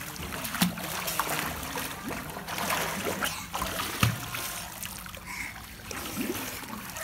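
Pool water splashing and sloshing as a small child swims, with sharper splashes about half a second in and about four seconds in.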